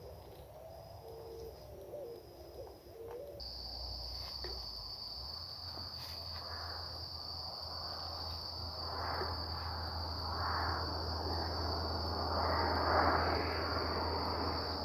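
An insect trilling at a high pitch, in short chirps at first and then continuously from about three seconds in. A soft rushing noise swells and fades a few times in the second half.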